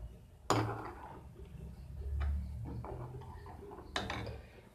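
Steel ladle knocking and scraping against a steel kadhai while stirring milky vermicelli kheer, with two sharper knocks about half a second in and near the end and a few light ticks between.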